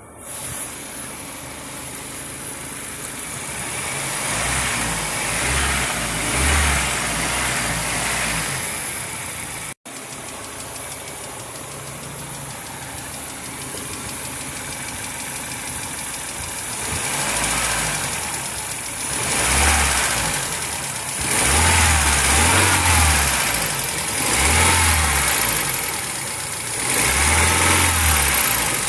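Mazda 626 engine running hot, with the tapping noise that the owner puts down to its hydraulic lash adjusters, a noise that appears only once the engine is warm. The engine swells louder several times in the second half.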